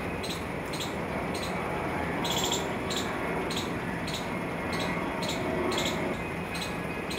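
Outdoor background ambience: a steady low hum with short, high-pitched chirps repeating about two to three times a second.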